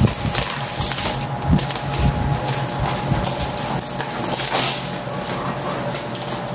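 Gift-wrapping paper rustling and crinkling as it is pulled and torn off a long cardboard box by hand, with irregular louder crackles, over a steady low hum.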